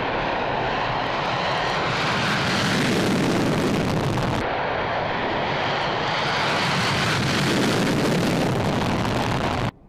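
Long-range bomber aircraft engines running, a loud steady rush of engine noise. The sound changes abruptly about four and a half seconds in and cuts off suddenly near the end.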